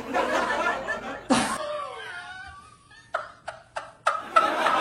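Laughter in bursts: a long laugh at the start, a quieter stretch, then short sharp laughs that build into more laughing near the end.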